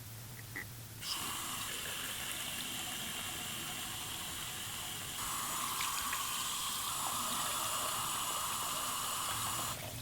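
Steady rushing hiss that starts suddenly about a second in, shifts in tone about halfway through, and cuts off just before the end.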